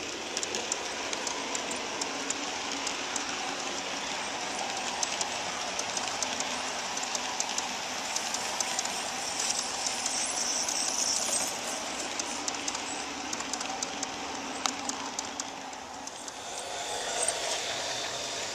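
Large-scale garden railway freight cars rolling past on outdoor track: a steady rolling noise with many quick, irregular clicks from the wheels over the rail joints. The sound changes and grows louder near the end as the locomotive comes by.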